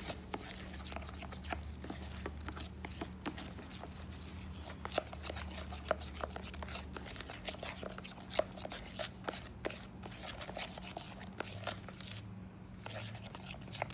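A spoon stirring thick muffin batter in a plastic mixing bowl, with irregular clicks and scrapes of the spoon against the bowl over a steady low hum.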